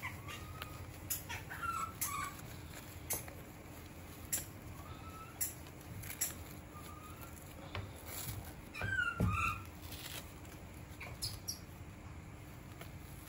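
A baby monkey making short, high squeaks now and then, with a louder run of rising-and-falling squeaks about nine seconds in, among scattered sharp clicks and taps.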